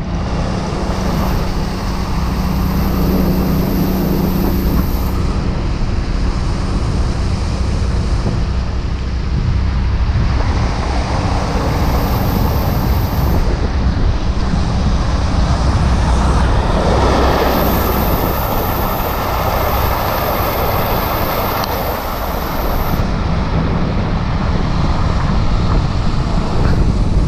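Small fishing boat's outboard motor running steadily at speed, with the rush of wind and water over the hull.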